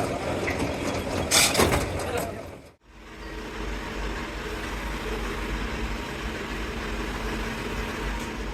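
Heavy machinery or an engine running with a steady low rumble and hum, after an abrupt cut about three seconds in; before the cut, irregular noisy clatter with one loud burst.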